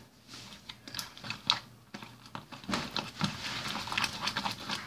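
Fluffy slime (clear glue, foaming hand soap and contact lens solution) being stirred with a spoon in a mixing bowl: irregular sticky, crackly clicks and squelches as the slime activates.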